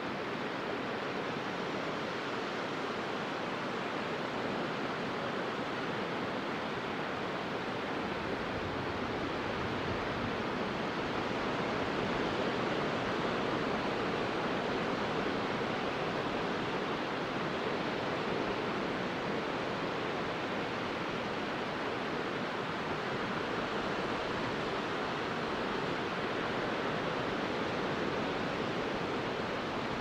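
Small sea waves breaking and washing in over a shallow sandy beach: a steady rush of surf that grows a little louder through the middle.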